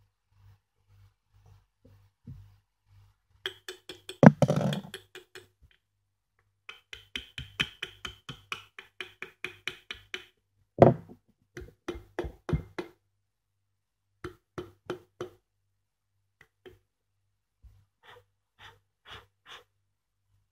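Metal parts of a motorcycle disc horn, its chrome cover and steel body, knocking and clinking as they are handled and fitted together: clusters of quick taps with two louder knocks about four and eleven seconds in, some ringing briefly.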